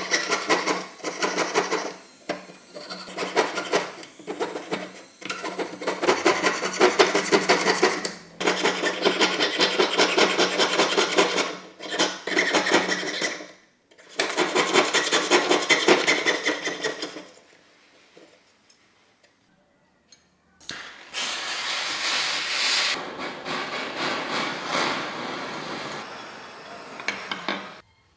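Jeweller's piercing saw cutting through a thin metal plate on a wooden bench pin: rapid back-and-forth strokes in long runs broken by short pauses. After a few seconds of quiet about two-thirds through, a hissier scraping runs until just before the end.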